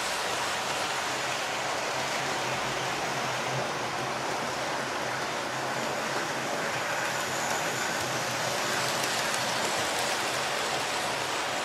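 Several model trains running on the layout's track: a steady, even whirr of small wheels on metal rails and electric motors, with a faint low hum underneath.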